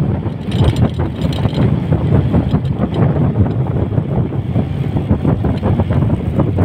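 Wind buffeting the microphone of a moving rider, a loud steady low rumble with fast flutter and no clear engine tone.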